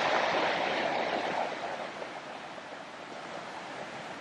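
Surf breaking and washing over a rocky pebble beach, a steady rushing wash that is loudest at first and dies down about two seconds in.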